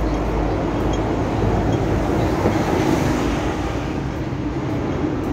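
Steady city street traffic noise with a deep heavy-vehicle engine rumble that eases about a second and a half in.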